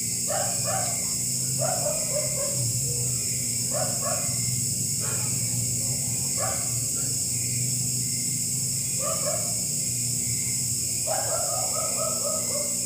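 An animal's short high calls in falling runs of several notes, repeating every few seconds, over a steady high-pitched hiss and a low hum.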